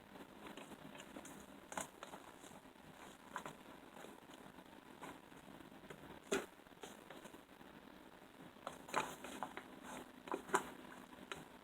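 Slime being worked by hand: faint, scattered clicks and crackles, with a few sharper pops about six seconds in and a cluster near the end.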